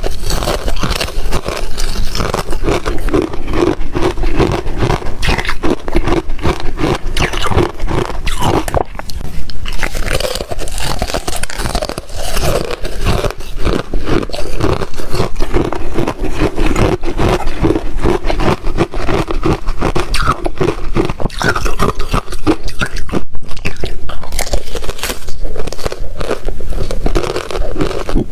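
Close-up crunching and chewing of ice chips, continuous rapid crackly bites and grinding with no pauses.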